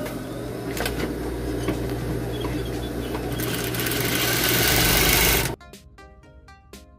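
Industrial high-speed lockstitch sewing machine running and stitching fabric with its needle fitted backwards, a fault that makes it skip stitches. It runs louder toward the end and stops suddenly about five and a half seconds in, after which background music is heard.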